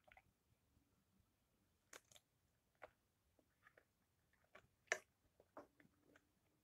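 A person chewing a bite of fig: faint, scattered mouth clicks and smacks, the loudest a little before five seconds in.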